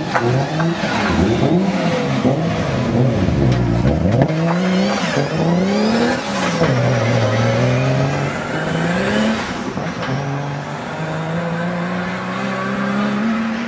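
Turbocharged RB30 straight-six of a Nissan Silvia S13 drift car revving hard, the revs jumping up and dropping again and again as it slides, then climbing more steadily as the car pulls away up the road near the end.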